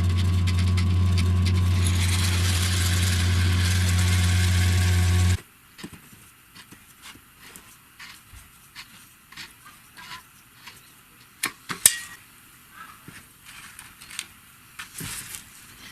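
A motor runs steadily with a low hum and a hiss, then cuts off suddenly about five seconds in. Light scattered clicks and knocks follow, with one sharper knock a few seconds before the end.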